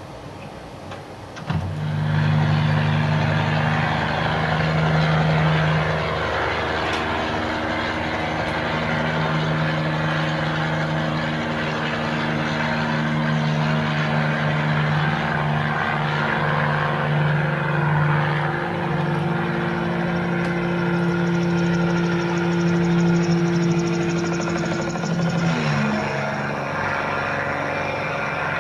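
Bell 47 helicopter's piston engine and rotor running steadily in flight. The sound cuts in abruptly about a second and a half in, and the engine note drops in pitch near the end.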